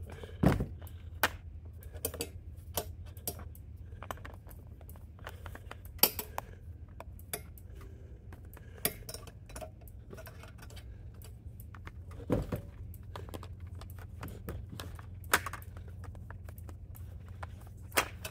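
Cattle at their grain feed: scattered clinks and knocks against feed tubs and fittings, the heaviest about half a second in and again about twelve seconds in, over a steady low hum.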